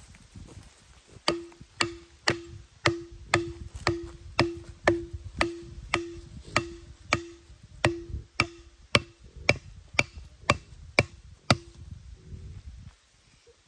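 A narrow-bladed digging tool on a bamboo handle chopping into soil and roots at the base of a bamboo shoot to cut it free: about twenty sharp, evenly paced strikes, roughly two a second, each with a short ringing note. The strikes begin a little over a second in and stop near the end.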